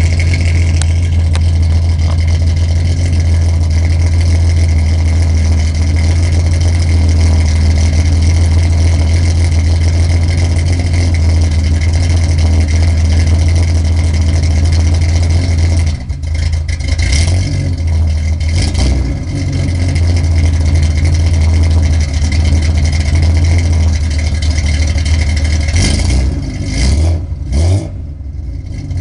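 1974 Datsun 260Z's 2.6-litre straight-six on twin SU carburettors, heard from the exhaust, idling with a lopey beat. Even with the mixture richened, the owner says it still sounds like it has a cam. It is briefly revved a little over halfway through and again a couple of times near the end.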